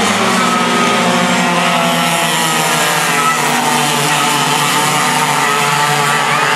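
Several racing kart engines running hard as a pack passes, their overlapping pitches rising and falling with the throttle.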